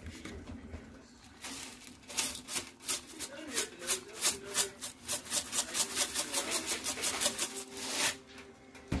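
Spice shaker of red pepper flakes shaken over a skillet: a quick, even run of rattling shakes from about a second and a half in until about eight seconds.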